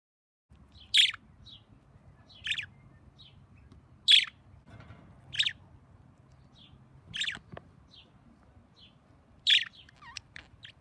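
Pet budgerigars chirping: short, sharp chirps about every one and a half seconds, with softer chirps between them.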